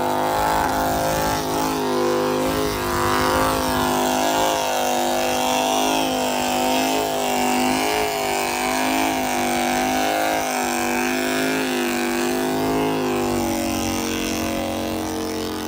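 A car engine running steadily, its pitch wavering gently up and down as the throttle is worked.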